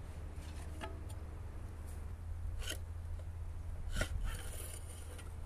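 A few short metal clinks and knocks, the loudest about four seconds in, as the cylinder head of a Hatz 2G40 air-cooled two-cylinder diesel is worked loose and lifted off its finned cylinders, over a steady low background hum.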